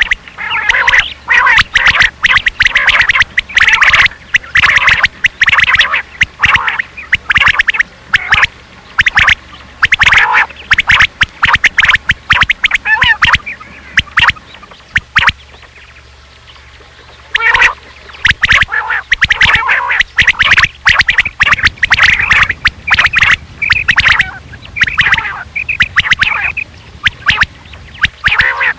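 Rain quail (batair) calls from a lure recording: loud, rapid runs of repeated sharp notes, with a pause of a few seconds about halfway through.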